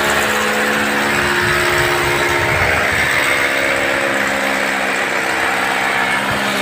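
A machine running steadily and loudly: a constant pitched hum under a broad hiss, with no change in speed.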